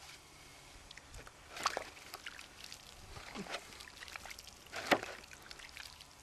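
Wet hands lathered with crushed yucca root rubbing and squishing together, with soft crackly ticks of suds and dripping water. Two louder wet squelches stand out, about a second and a half in and again about five seconds in.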